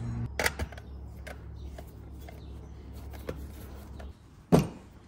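Small clicks and handling noises of wires and a screwdriver being worked inside a tractor's instrument-panel housing, with one sharp, louder knock about four and a half seconds in.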